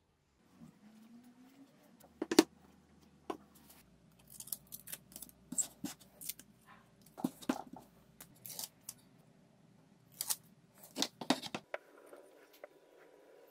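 Wooden blocks and plywood pieces handled and set against each other and the work surface: an irregular string of sharp clicks and knocks with short scrapes.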